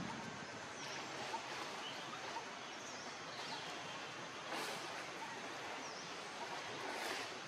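Steady outdoor background noise with a few faint, short high chirps, and two brief rustling swells, about halfway through and near the end.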